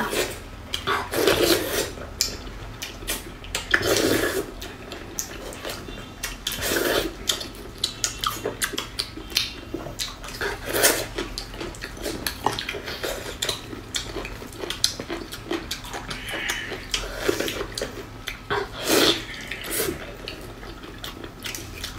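Close-miked eating of fatty braised pork: wet chewing, lip-smacking and slurping, with squelches of gloved hands tearing the meat. They come as irregular clicks with a handful of louder wet smacks.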